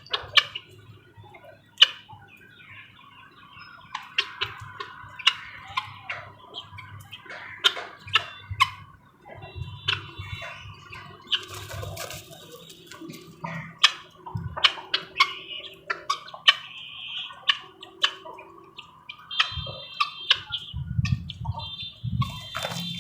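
Birds of a mixed backyard flock of pigeons, hens, chukar partridges and peafowl calling: scattered short chirps and squawks, with repeated quick high notes near the end and many sharp ticks and taps throughout.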